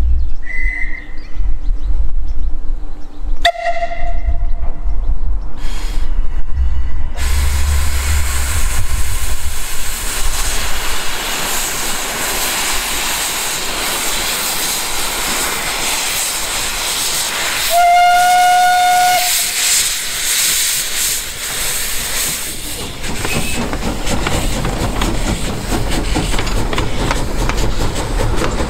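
1895 narrow-gauge steam locomotive starting its train: a short high whistle and a brief toot, then steam venting from the cylinder drain cocks starts about seven seconds in as a loud steady hiss. About two-thirds of the way through the locomotive's whistle sounds one blast of a second or so, and the hiss carries on as the train moves off.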